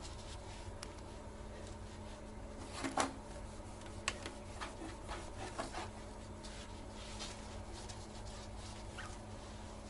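Cloth and gloved hand wiping the plastic toilet seat frame and hinge cover: faint rubbing with a few light knocks and squeaks, the loudest knock about three seconds in. A steady low hum runs underneath.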